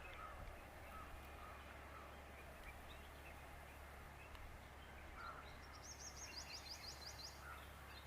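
Quiet outdoor ambience with a low steady hum and faint bird chirps repeating now and then. Near the end comes a fast high trill of about ten ticks lasting a second and a half.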